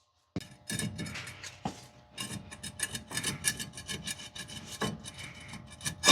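Worn front wheel bearing in a Dodge Ram 2500/3500 hub, turned by hand, grinding and rasping with fast, uneven gritty clicks: the bearing is starting to go out. A louder knock comes at the very end.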